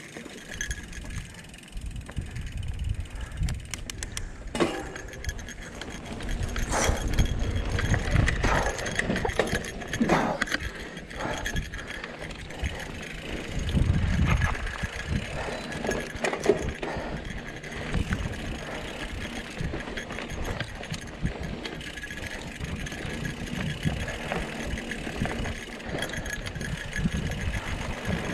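Mountain bike being ridden over a dirt trail: wind buffeting the camera microphone and the bike rattling over the bumps, with scattered sharp clicks and knocks, louder in stretches where the trail is rougher.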